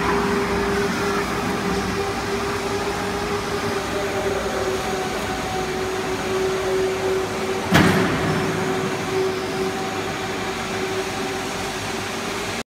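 C purlin roll forming machine running with a steady hum and a constant tone, with one sharp knock about eight seconds in.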